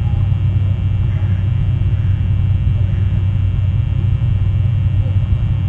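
Steady low rumble and hum on the nest camera's outdoor microphone, without letting up.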